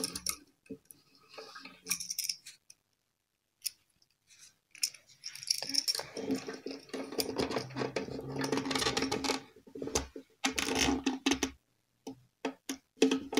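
A light-alloy violin tailpiece being handled and fitted: scattered small metallic clicks and clinks. Through the middle there is a stretch of muffled rustling with a low steady hum under it.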